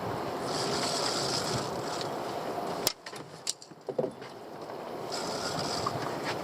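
Wind buffeting the microphone over water sounds around a small boat. About three seconds in the noise drops away abruptly, leaving a few sharp clicks and knocks, then builds back up.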